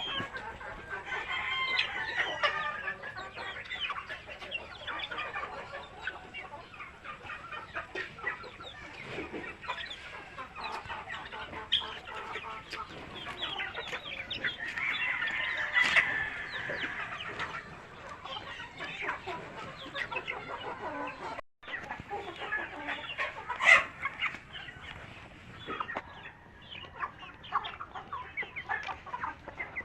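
A flock of native chickens clucking and calling continuously. The sound drops out for a moment about two-thirds through, and there is one sharp loud sound shortly after.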